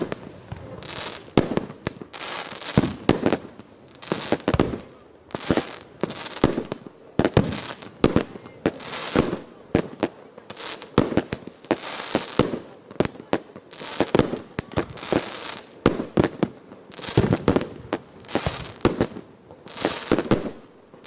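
A 19-shot, 1.2-inch consumer firework cake firing its shots in sequence: sharp bangs about one or two a second, with crackle trailing after them.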